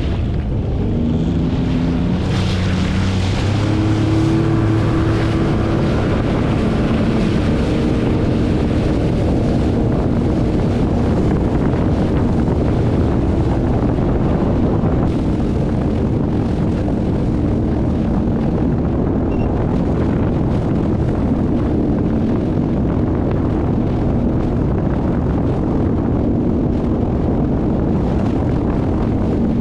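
Sea-Doo FishPro personal watercraft's three-cylinder Rotax engine running under way. It speeds up over the first few seconds, then holds a steady speed, with wind buffeting the microphone.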